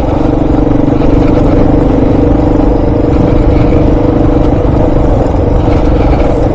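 Kawasaki KLR650's single-cylinder four-stroke engine running steadily as the motorcycle rides along at an even speed, with no revving up or down.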